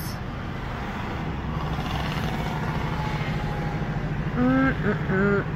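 A car's engine running and road noise heard from inside the cabin as the car moves slowly in traffic. Near the end, a person hums or sings a few short notes over it.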